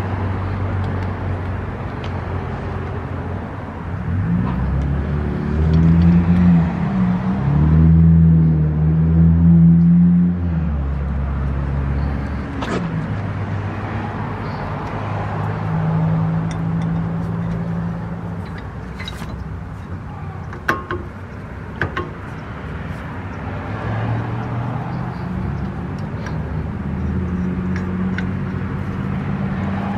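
A motor vehicle engine running with a low hum, growing louder for several seconds early on and then easing back. A few sharp clicks come later.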